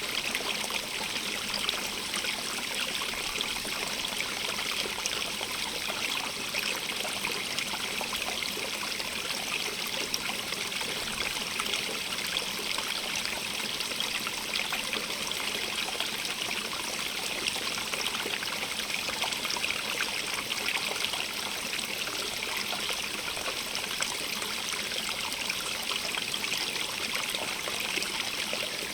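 A stream running steadily over rocks, a continuous bright rush with small trickles and splashes.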